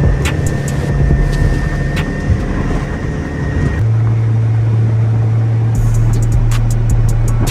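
Fishing boat's motor running steadily under way, with the engine note shifting about four seconds in.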